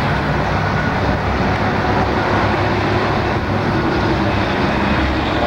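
A car being driven along a road: a steady rumble of engine and tyre noise.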